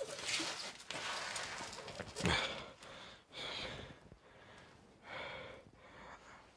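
A man breathing hard in ragged, gasping breaths, several in a row, growing quieter toward the end.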